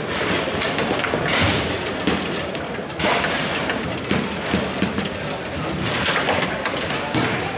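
Bonzini foosball table in play: a series of sharp knocks and thuds as the ball is struck by the rod-mounted players and hits the table.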